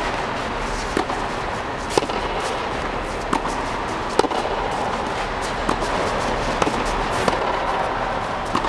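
Tennis balls being struck by a racket and bouncing on a hard court: a string of sharp pops about once a second, over a steady background hum.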